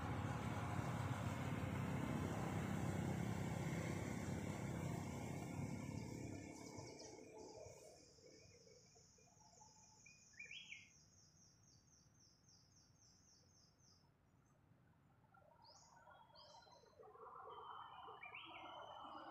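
A rushing noise, heaviest in the low range, fades away over the first seven seconds. Then, at a low level, a bird gives a long run of high, evenly repeated chirps, about three a second, with a few other short bird calls, before a softer rush returns near the end.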